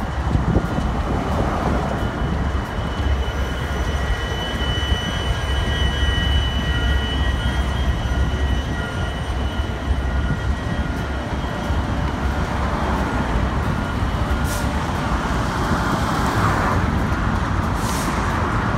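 Several BNSF diesel-electric freight locomotives passing below, a steady deep engine rumble with a thin high whine held above it.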